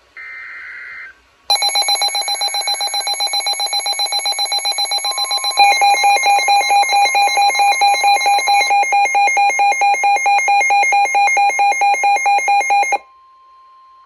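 NOAA weather alert radios going off for a severe thunderstorm warning. A short buzzy burst of the S.A.M.E. digital header comes first. About a second and a half in, the radios' alarms start with loud, rapid pulsing beeps, which grow louder and change pitch about halfway through, over the broadcast's faint steady attention tone that carries on alone after the beeping stops about a second before the end.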